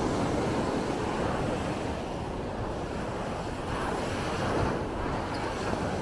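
Ocean surf washing steadily onto a sandy beach, with wind buffeting the microphone; the surf swells a little louder just past the middle.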